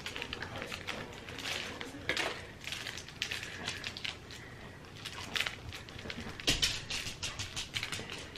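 Irregular rustling and crinkling of plastic toy packaging and crinkly plush dog toys being handled, with scattered clicks and a light knock about two-thirds of the way through.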